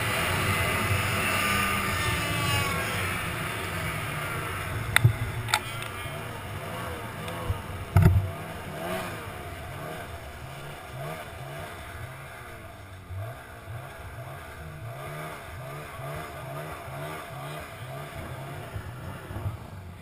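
Ski-Doo 800 E-TEC two-stroke snowmobile engine coming off speed, its pitch falling over the first few seconds, then running slowly with an uneven, pulsing note. A few sharp knocks sound midway, the loudest about eight seconds in.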